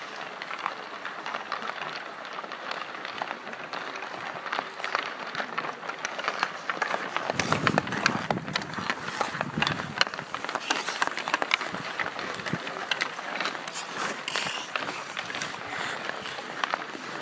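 Ice hockey skate blades scraping and carving on rink ice, with many sharp clicks of sticks hitting pucks. From about seven seconds in it grows louder, as a player skates and stickhandles a puck close by.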